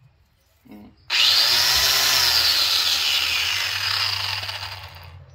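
Milwaukee angle grinder switched on about a second in, its motor whining up to speed, then slowing and fading as its power cord is flexed: power dropping out at a break in the cord.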